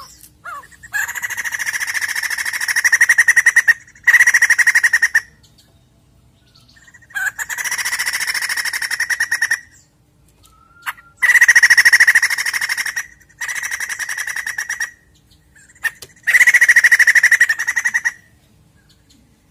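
White-crested laughingthrush calling loudly in rapid, rattling chatters, six runs of one to three seconds each with short pauses between.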